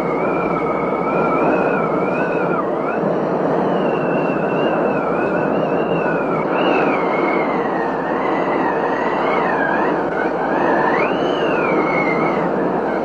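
Heavy rain pouring steadily, with a thin high tone that wavers up and down in pitch throughout.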